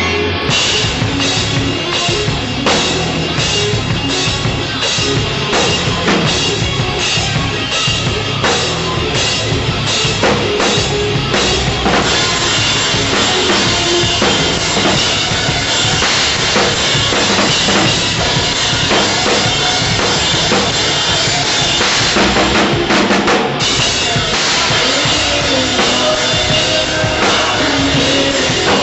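Tama drum kit played in a rock groove, bass drum and snare strikes with cymbals. About twelve seconds in the cymbals wash over everything, easing briefly near the end.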